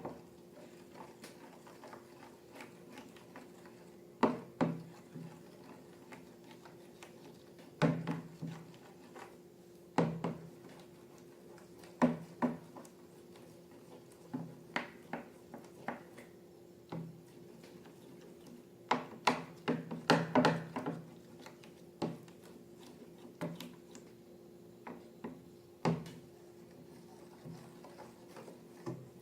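Irregular sharp taps and clicks of objects being handled on a hard surface, some in quick clusters, over a faint steady hum.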